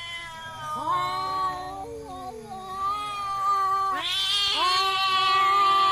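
Two domestic cats yowling at each other in a fighting standoff. The howls are long, drawn-out and wavering, and they overlap; a louder one starts about four seconds in.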